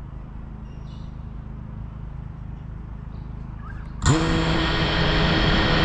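A low steady rumble, then about four seconds in the FPV quadcopter's brushless motors spin up with a sudden loud whine, holding several steady tones as the quad idles on the ground.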